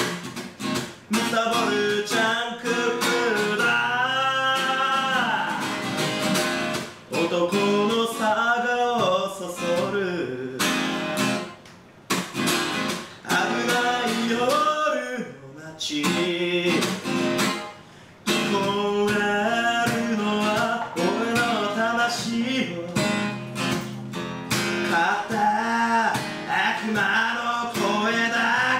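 A man singing while strumming an acoustic guitar, the voice coming in phrases over the strummed chords.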